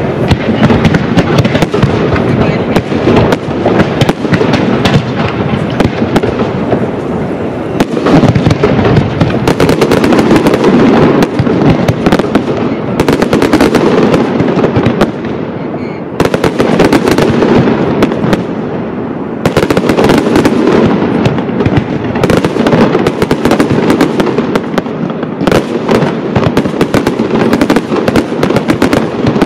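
Castillo fireworks display by Pirotecnia Caballer: a loud, dense, unbroken barrage of aerial shell bursts and crackle. It eases briefly past the middle and surges again with each new volley.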